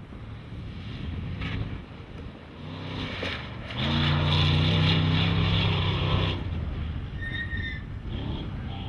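Off-road desert race vehicle's engine at high revs as it passes at speed. The sound builds from about three seconds in, holds loud and steady for about two and a half seconds, then cuts off abruptly.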